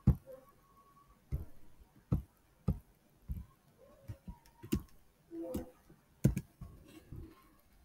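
Computer mouse clicks and keyboard keystrokes: about ten sharp, separate clicks at irregular intervals as buttons are clicked and an amount is typed in.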